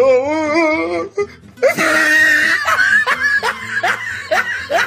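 A person's voice: a long, wavering, sung-like vocal sound, then laughter in short rising bursts, about two to three a second.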